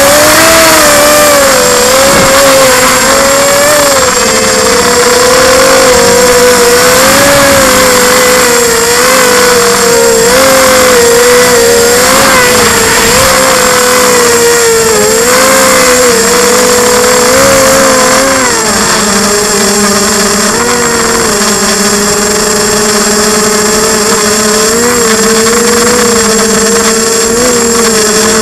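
Quadcopter's electric motors and propellers whining, picked up close by the camera mounted on the frame. The pitch wavers up and down as the craft flies, then settles lower about two-thirds of the way through.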